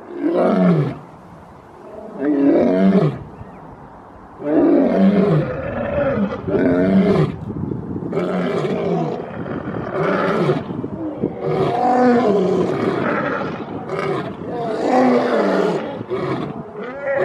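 Two male lions roaring. Two separate long roars fall in pitch, then from about four seconds in the two lions overlap in a steady run of roars.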